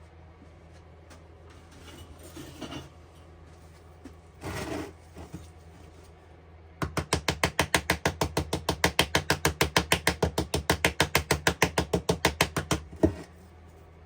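A fast, even run of mechanical clicks, roughly eight a second, starting about seven seconds in, lasting about six seconds and ending on a louder click. It is preceded by two brief handling noises.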